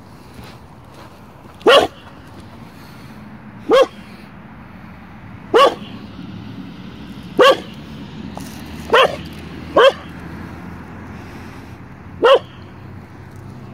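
Jindo dog barking: seven sharp single barks, each spaced about two seconds apart, with two coming close together about nine and ten seconds in.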